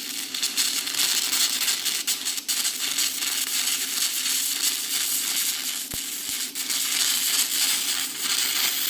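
Stick (arc) welder running a bead, the arc crackling and sizzling steadily without a break.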